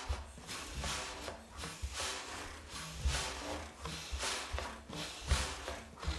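Clarinet played as breathy, mostly unpitched air puffs in a steady rhythm of about two a second, with soft low thuds under them.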